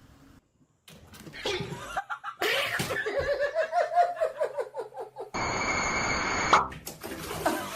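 A person laughing in a quick run of pulses whose pitch rises and then falls, followed about five seconds in by a loud burst of hiss lasting about a second.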